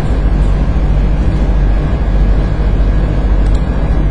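Steady low hum with a constant rushing noise over it, unchanging throughout.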